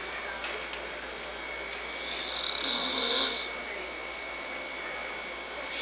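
A person snoring loudly: one long snore starts about two seconds in and lasts about a second and a half, with quieter breathing around it.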